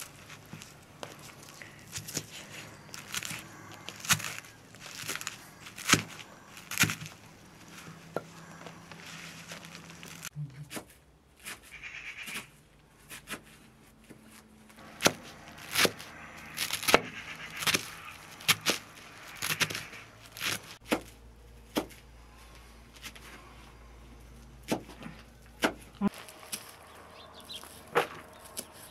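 Knife chopping leafy greens on a wooden cutting board: sharp, irregular knocks in uneven runs, with a quieter stretch partway through.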